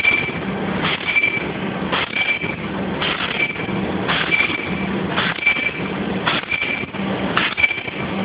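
Non-woven bag making machine running in a regular cycle of about one stroke a second, each stroke a sharp clack followed by a brief high whine, over a steady mechanical clatter.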